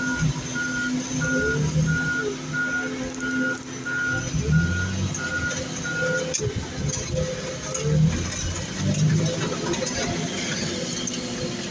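Reversing alarm on a working loader beeping about twice a second, stopping about six seconds in, over the machine's engine running and rising at times.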